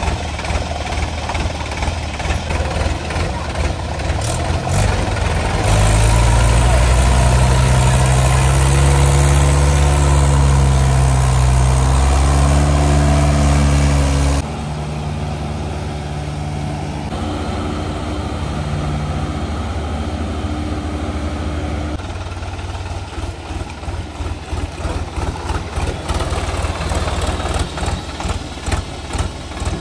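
Tractor diesel engine running. From about six seconds in it is revved hard, its pitch rising and falling. About halfway through it drops back suddenly to a lower, steadier running, which turns uneven and pulsing near the end.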